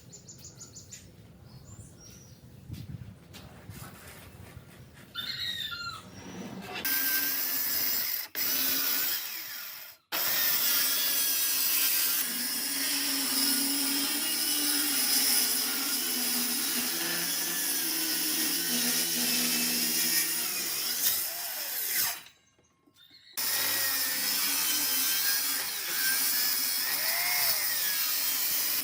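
Handheld power tool running at a steady speed on oak, with a constant motor hum under the noise of the cutting. It starts about seven seconds in after a quieter opening and stops abruptly twice, near 10 seconds and again near 22 seconds, before starting again.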